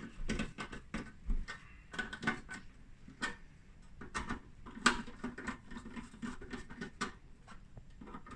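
Hand screwdriver turning small machine screws into a metal amplifier screening can: irregular small clicks and scrapes of the tip in the screw heads, with one sharper click about five seconds in.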